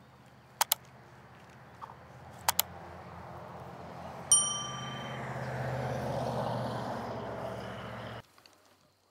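Subscribe-button sound effect: two sharp clicks, then a bell-like notification ding that rings for about a second. A steady low hum and a swelling rush run under it and cut off abruptly near the end.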